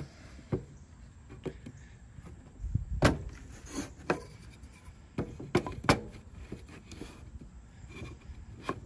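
Pine 1x1 wooden strips being set down and knocked into place on a sheet-metal tabletop as they are laid out into a square frame. Several sharp wooden knocks and clacks at uneven intervals, the loudest about three seconds in and a cluster near six seconds.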